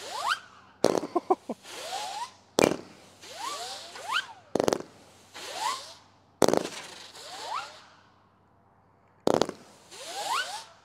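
Zippee Ki-Yay 200-gram firework cake firing shot by shot: a sharp report from the tube about every two seconds, five in all with a longer pause before the last, each followed by a few quick rising zipping whistles in the air, like zippers.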